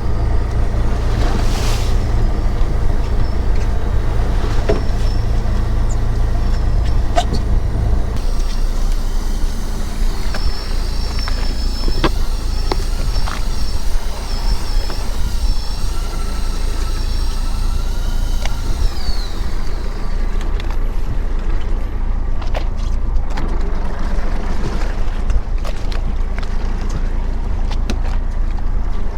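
Fishing boat's engine running with a steady low rumble that drops in pitch about a quarter of the way through. A thin high whine joins it for several seconds in the middle and ends with a falling glide, along with a few scattered clicks.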